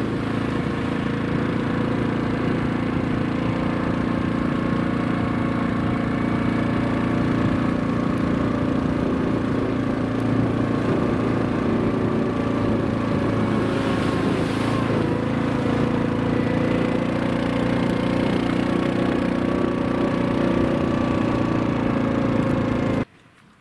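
ATV engine running steadily as the machine drives along a rough dirt trail. The sound stops suddenly near the end.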